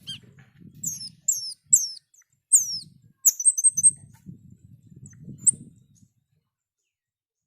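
Cucak keling bird calling: a run of sharp, high-pitched notes that sweep downward, then a brief warbled twitter and one last note. A faint low rumble sits underneath, and it all stops about six seconds in.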